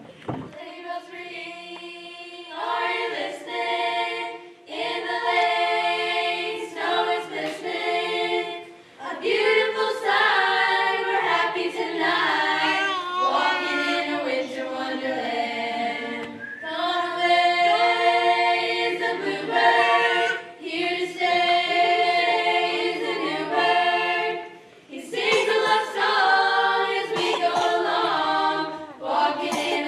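High school choir of mostly female voices singing a cappella in harmony, in sustained phrases with brief pauses between them.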